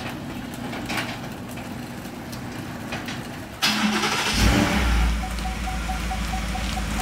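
A car engine starts a little past halfway, then runs with a steady low rumble. Soon after, a quick, even beeping starts up, about four beeps a second.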